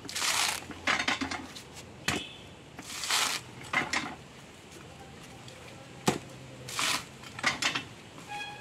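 Dry coconut husk being levered and torn off on a metal husking spike: a series of rough ripping tears of fibre about a second apart, with a couple of sharp knocks as the nut is worked against the spike.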